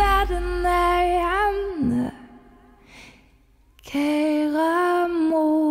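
Woman's voice singing a traditional Danish ballad, holding long wavering notes. The low band accompaniment drops out after about two seconds, leaving a short near-silent pause. The voice then comes back alone on another held note.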